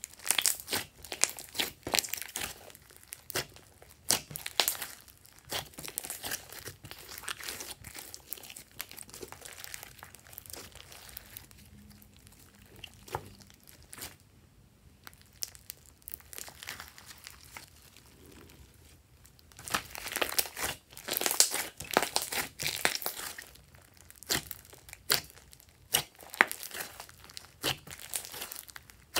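Hands squeezing, kneading and stretching thick glossy slime mixed with clay and makeup, giving dense runs of quick clicks and crackles. They are busiest in the first few seconds and again from about twenty seconds in, with a sparser stretch in between.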